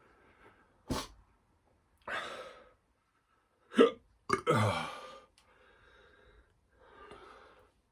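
A man hiccupping a few times, short and sharp, between hard breaths, with a groan just after the middle. The hiccups are brought on by the burn of fresh-chili hot sauce in his mouth and throat.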